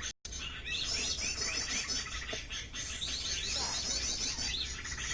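Small birds chirping and twittering in a dense, high-pitched chorus of rapid repeated notes, broken by a brief dropout just after the start.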